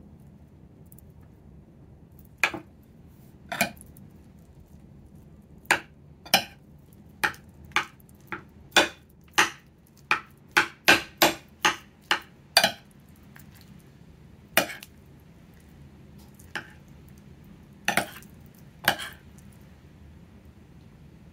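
Metal spoon clinking against a ceramic plate while curry, egg and rice are mixed: about twenty sharp clinks, coming in a quick run near the middle.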